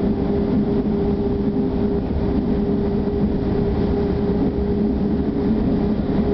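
Inside a moving passenger train: steady running noise of wheels on rails with a constant low hum, with no change in speed.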